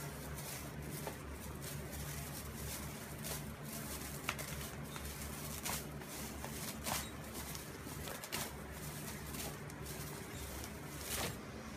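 Thin plastic grocery bag crinkling in short, irregular crackles as a cat noses and chews at it, with the sharpest crackles about four, seven and eleven seconds in. Under it runs a steady low hum.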